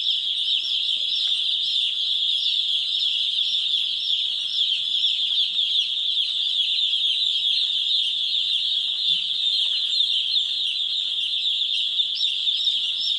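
A crowd of poultry chicks peeping all together, a dense, unbroken chorus of high, quick cheeps.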